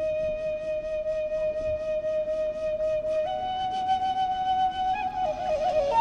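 Kagura hayashi flute, a Japanese bamboo transverse flute, playing long held notes: one note for about three seconds, then a step up to a slightly higher note, then quick ornamented notes near the end. Faint quick ticking runs beneath it.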